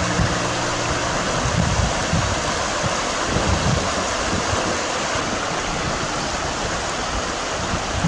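Shallow river rushing over rocks: a steady hiss of flowing water.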